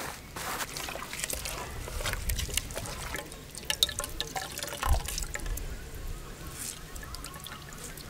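Hands squeezing and working wet grated coconut in an aluminium pot to press out coconut milk: wet squishing with liquid dripping back into the pot.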